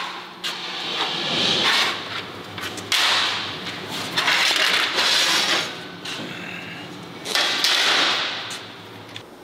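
Flat steel plate being slid and dragged over a workbench: a sharp metallic clank, then several rasping scrapes, each lasting about a second.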